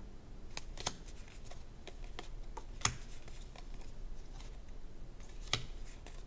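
Uno playing cards being flipped through by hand, sliding against one another with faint rustling and a few sharp card snaps. The loudest snap comes about three seconds in.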